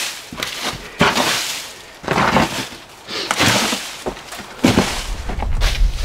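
Loose stones and gravel being scraped up and tossed off a sandstone cave floor, clattering and crunching in short bursts about a second apart, busier near the end.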